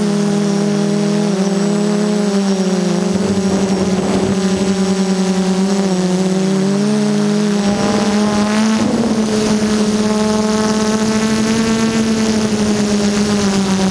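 DJI F330 quadcopter's brushless motors and propellers droning, heard close up from the camera on board. Several steady tones drift and beat against each other as the motors change speed, and they settle to a steadier pitch about eight seconds in.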